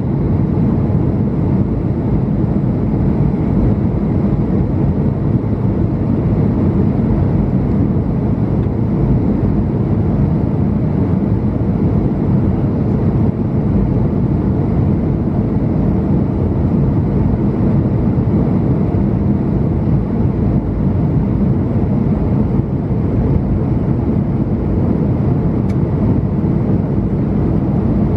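Steady low cabin drone of an Airbus A220-300 airliner in flight: its Pratt & Whitney geared turbofan engines and the rush of air over the fuselage, heard from a window seat in economy.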